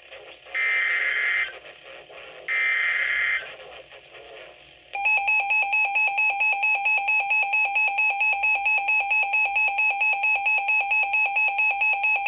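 Emergency Alert System signal. First come two short bursts of the warbling digital data header, about a second each and a second apart. Then, about five seconds in, the loud buzzy attention tone starts, pulsing about four times a second, announcing a severe thunderstorm warning.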